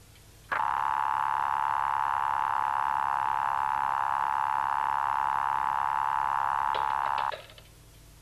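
A loud, harsh, steady buzzing tone from a candlestick telephone's earpiece after the caller's voice is gone. It starts suddenly about half a second in and stops abruptly a little after seven seconds, following a few clicks.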